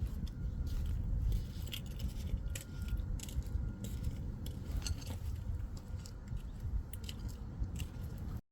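Scattered small clicks and scrapes of metal brake parts being handled and cleaned, over a steady low rumble, cutting off abruptly near the end.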